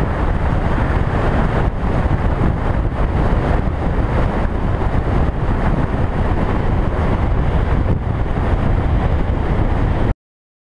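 Wind buffeting the microphone of a helmet camera on a motorcycle moving at road speed, a steady low rumble of wind and road noise. It cuts off suddenly near the end.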